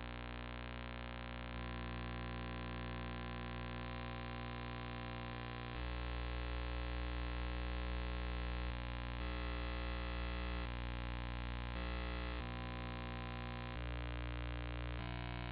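Steady electrical hum and buzz, many fixed tones at once, that shifts abruptly to a slightly different pitch mix every second or few.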